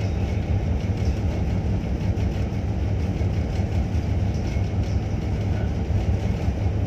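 Steady low rumble of a harbour tug's diesel engines running, heard on board the vessel.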